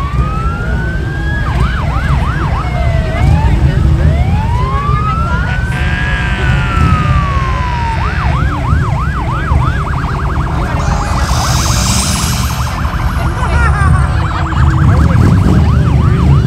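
Emergency vehicle sirens cycling through their modes: a slow wail that rises and falls, fast repeated yelps, and about two seconds past the middle a rapid warble, with a higher sweeping tone on top. Underneath runs a steady low engine rumble.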